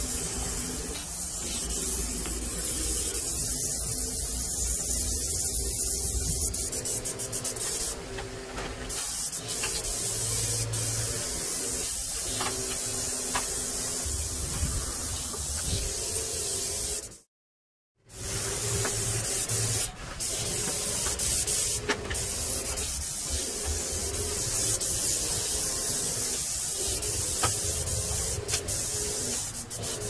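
Graco airless paint spray gun hissing steadily as it atomizes paint onto a door, with a steady low hum underneath. The sound cuts out for about a second midway, then resumes.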